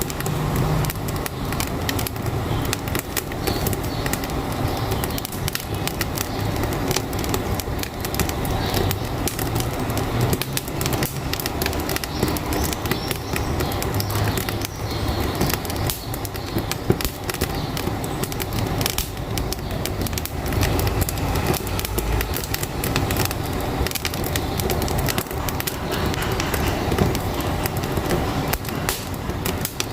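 Wood fire crackling in a wood-burning stove, with frequent sharp pops, over a steady low rumble of a truck engine.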